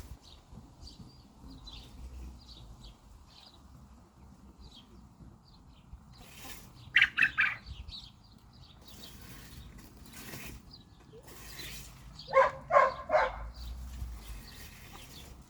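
Chickens clucking in two short rapid bursts, about seven seconds in and again near the end, over faint high bird chirps and a few brief rustling noises.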